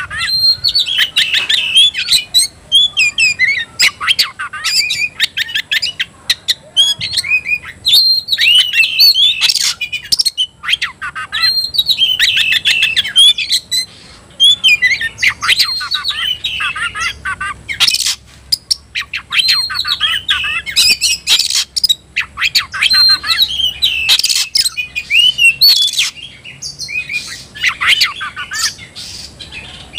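Oriental magpie-robin (kacer) singing a loud, rapid, varied song of whistles, chattering and sharp clicking notes, in phrases of a second or two broken by short pauses. It is a fired-up, territorial song of the kind a kacer gives when it is looking for a rival to fight.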